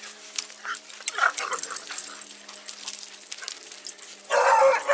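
Dogs vocalizing: a few short, pitched whines and yips, then one louder, drawn-out bark about four seconds in.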